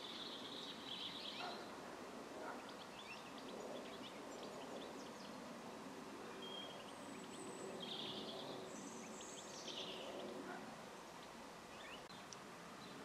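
Birds calling: scattered short, high chirps and a few longer calls, over steady background noise.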